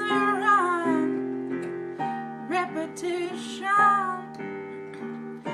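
A woman singing a slow melody with long-held, wavering notes over sustained keyboard chords.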